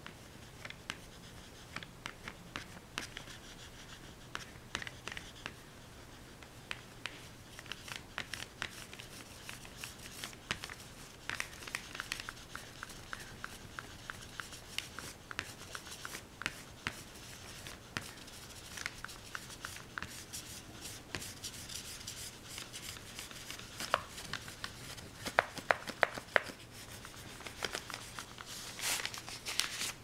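Irregular rubbing and scratching strokes of a drawing or painting tool working on a surface, with scattered light taps and a few sharper clicks near the end, over a faint steady hum.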